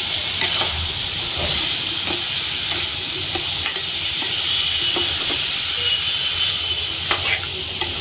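Diced pumpkin sizzling in hot oil and masala in a metal kadhai while a steel spoon stirs it, with scattered scrapes and clicks of the spoon against the pan over a steady frying hiss.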